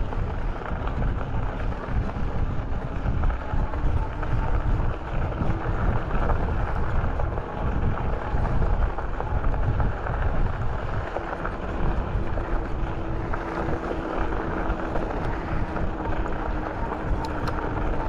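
Wind buffeting the microphone of a camera on a moving bicycle: a continuous, gusting low rumble. A faint steady hum comes in about two-thirds of the way through.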